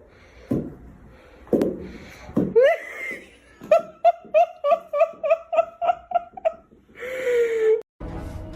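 A person laughing hard: a few outbursts, then a rapid run of about a dozen high-pitched "ha" pulses, about four a second, and one last outburst near the end.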